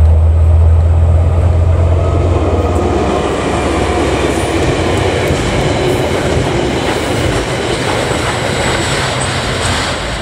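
Diesel-hauled freight train passing close by. A deep steady hum from the locomotives fades over the first few seconds, then the tank wagons roll past with continuous wheel and rail clatter that slowly recedes.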